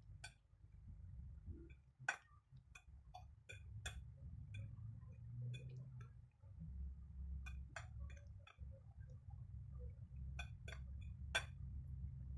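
Fork mashing banana on a plate: irregular, faint clicks and taps of the metal tines against the plate, over a low steady hum.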